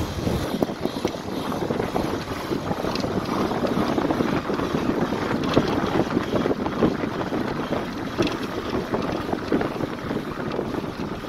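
Wind buffeting the microphone: a loud, rough rush with irregular gusts.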